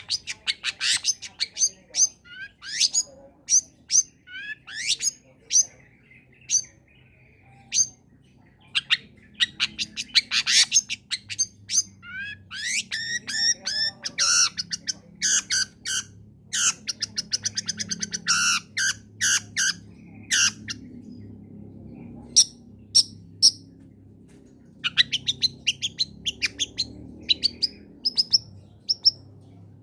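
Long-tailed shrike (cendet) singing a busy, varied song: sharp high chirps, harsh notes and fast rattling trills in quick phrases with brief pauses.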